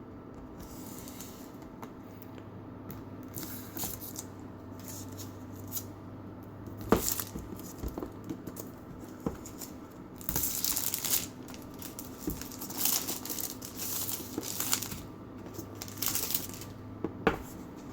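A tablet's retail box being unwrapped and opened: plastic wrapping tearing and crinkling, with scattered sharp clicks and knocks of the packaging.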